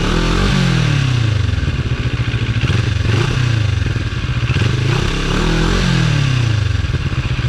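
CFMoto NK400's 400 cc parallel-twin on its stock exhaust, warm, idling with the throttle blipped twice. The revs rise and fall about a second in and again about five seconds in.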